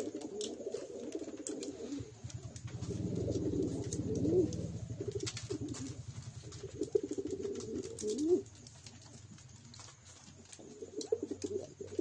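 Domestic pigeons cooing in runs of low coos, with a rising swoop about four seconds in and another about eight seconds in, then a quieter few seconds before the cooing starts again near the end. Light clicks and taps are scattered through it.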